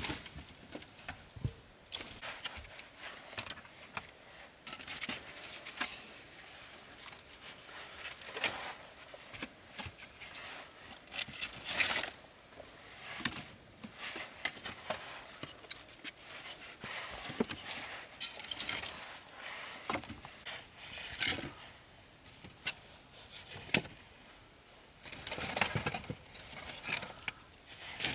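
Irregular scrapes, clicks and rustles of objects being handled, coming in quick uneven bursts with a denser run near the end.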